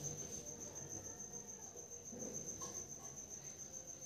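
Faint, steady, high-pitched pulsing trill of a cricket.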